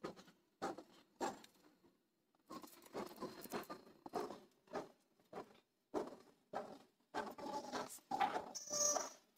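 Irregular scratching and scraping, in short bursts with brief gaps and thicker in the second half: a red-eared slider's claws scraping rough concrete as it walks.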